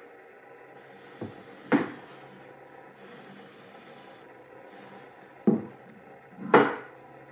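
Cherry wooden box handled and turned on a wooden tabletop: two pairs of wooden knocks as it is lifted and set back down, one pair about a second in and another near the end, with light sliding and rubbing of wood on wood between.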